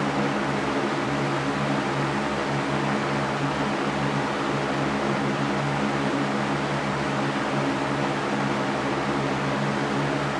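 Electric fan running steadily: an even rushing of air with a low motor hum beneath it.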